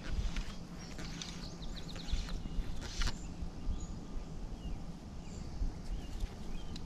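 Low rumble of wind and handling on the microphone as a trout is played and fly line is stripped in by hand, with a short rasp about three seconds in. Small birds chirp now and then, with a quick run of ticks near two seconds.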